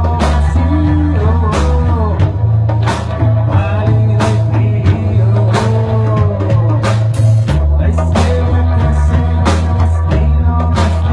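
Rock music: a steady heavy bass and drum kit under a melodic line that glides up and down in pitch.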